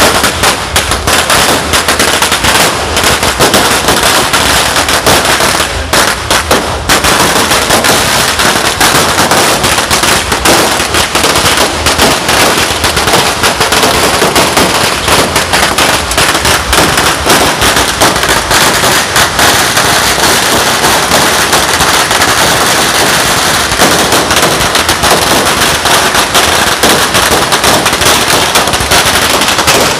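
Firecrackers going off in a dense, unbroken rapid crackle, like long strings of crackers popping one on another, with a brief thinning about six seconds in.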